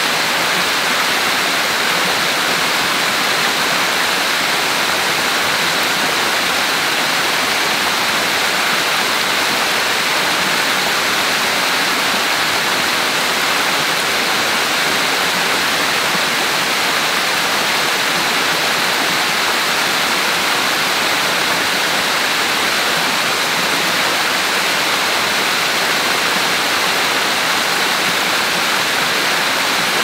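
Waterfall: water cascading and splashing over rocks in a steady, unbroken rush.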